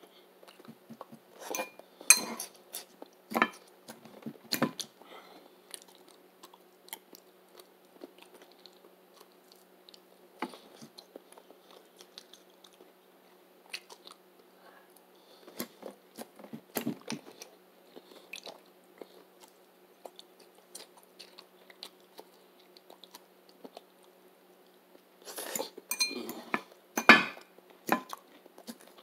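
Close-up chewing and crunching of stuffed bell peppers and vegetables: sharp crunchy bites come in three bouts, near the start, in the middle and loudest near the end, with quieter chewing between.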